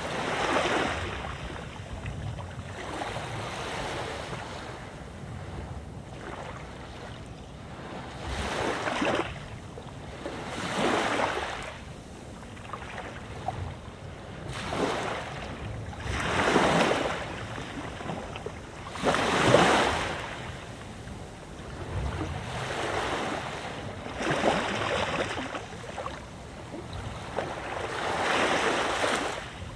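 Mediterranean sea waves breaking and washing up a beach in a run of surges every few seconds, the strongest about two-thirds of the way through, over a steady low rumble of wind.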